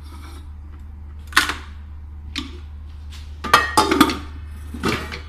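Dishes and kitchen items clattering as they are handled and set into a plastic dish rack: a knock about a second and a half in, another a second later, a quick run of clatters around four seconds, and one more near the end. A steady low hum runs underneath.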